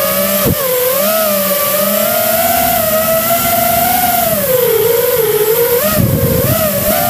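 Electric motor whine of the radio-controlled aircraft carrying the camera, a single tone that wavers up and down with the throttle. There is a quick downward swoop in pitch about half a second in and a short burst of low rumble about six seconds in.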